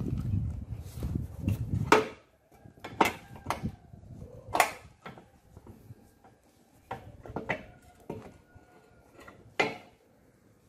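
Close handling noise for about two seconds, then a string of sharp metal clinks and knocks, about seven, spread over the next eight seconds, as a steering shaft's universal joint is worked onto the steering rack's pinion.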